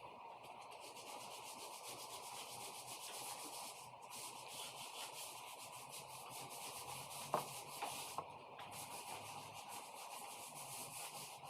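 Faint, steady rubbing on wood, with a sharp tap about seven seconds in and a lighter one just after.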